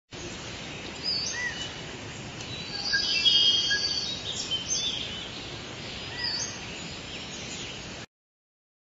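Several songbirds singing and chirping over a steady background hiss, loudest about three seconds in, then cutting off abruptly about eight seconds in.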